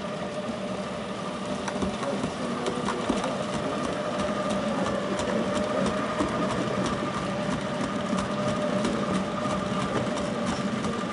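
7mm-gauge model diesel locomotive running past with a long train of hopper wagons: a steady hum from the locomotive, with a quick run of small clicks as the wagon wheels roll over the track, thickening from about four seconds in.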